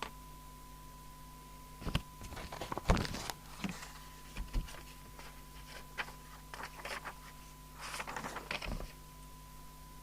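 A few clicks, knocks and rustles of handling at a test bench, over a faint steady high tone and a low mains hum from the equipment.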